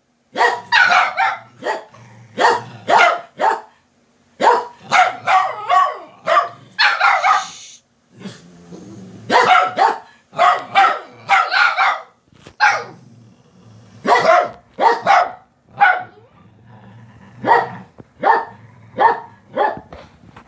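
Dogs barking over and over in short volleys of two to four barks with brief pauses between, demanding that their owner get up.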